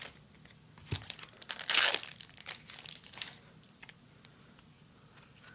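A foil trading-card booster pack wrapper torn open with one short rip, followed by crinkling of the wrapper as it is handled; the sound dies away for the last couple of seconds.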